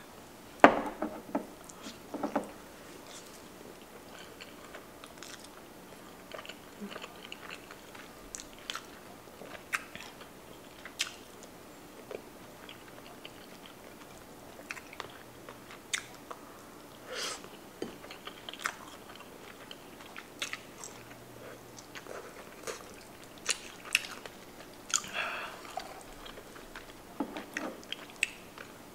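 Close-miked eating sounds of a person chewing and biting rotisserie chicken breast dipped in lingonberry sauce: scattered wet mouth clicks and smacks, with the sharpest sounds about a second in.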